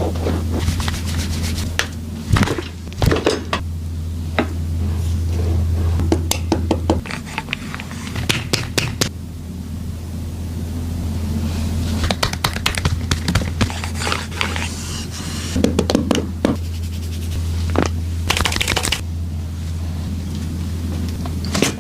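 Chiropractic adjustment: clusters of quick joint pops and cracks from the patient's back and spine, with scraping and rubbing of hands against skin and clothing, over a steady low hum.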